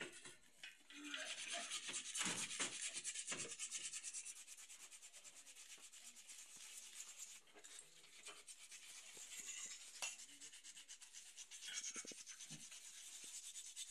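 Steady dry rubbing on a hard surface, made of quick fine strokes and loudest in the first few seconds, of the kind made when cleaning or rubbing down engine parts by hand.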